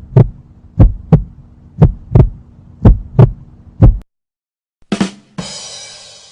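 Heartbeat sound effect: deep thumps in lub-dub pairs, about one pair a second, over a steady low hum. After about four seconds it stops, followed by a short hit and a hissing swell that fades away.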